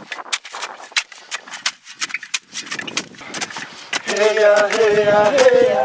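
Rapid, irregular chopping strikes, several a second, as plant material is hacked up small for compost. About four seconds in, voices start singing a slow chant.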